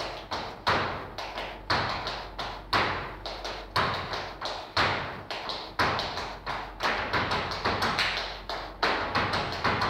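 Flamenco footwork: a dancer's shoes striking the stage floor in stamps and taps, irregular and sometimes in quick runs, each strike trailing off in the hall's echo.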